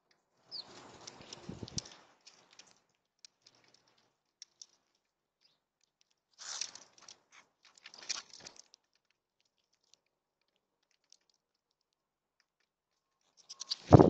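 Wings of small brown birds fluttering as they land on and take off from a tube seed feeder, in short bursts about a second in and again around six and a half and eight seconds, with light scattered clicks of feet and beaks between. Near the end a loud thump and flutter as a bird lands right by the microphone.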